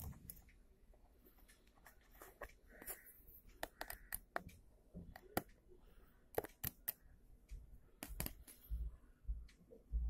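Irregular small clicks and knocks of hard plastic being handled: a hand working a float inside a PVC tube in a plastic tank, with a few dull thumps near the end.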